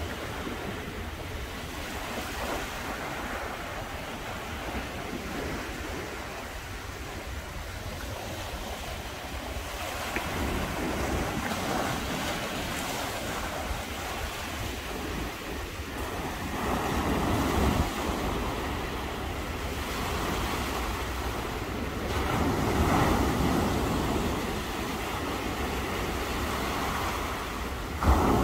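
Sea waves breaking and washing onto a beach, surging louder every several seconds, with a steady rumble of wind on the microphone.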